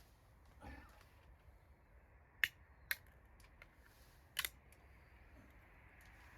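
A few sharp clicks over a faint steady background hiss: one loud click about two and a half seconds in, another half a second later, and a quick double click about four and a half seconds in.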